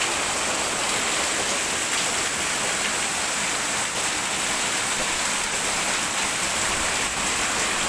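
Heavy rain pouring down, a dense, steady hiss with no let-up.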